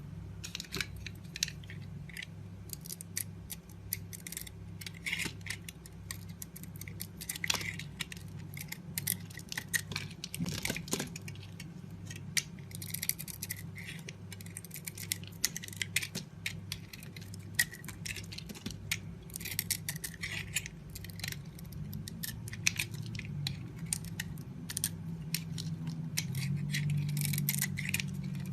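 A knife cutting and scraping into a bar of soap: an irregular run of crisp clicks and short scraping strokes as shavings come away, over a faint steady low hum.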